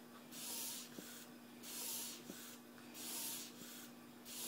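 Soft, faint swishes of a baby wipe rubbing over a newborn's skin during a diaper change, about one stroke every second and a quarter.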